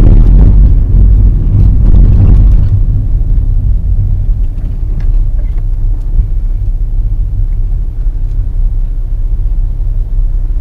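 Volkswagen car on the move, heard from inside the cabin: a loud, steady low rumble of engine and road noise, easing somewhat after about three seconds.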